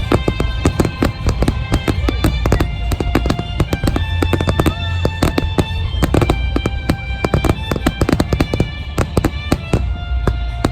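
Fireworks display shells going off in dense, rapid succession: many sharp cracks with a deep low boom underneath. A music soundtrack with long held notes plays along.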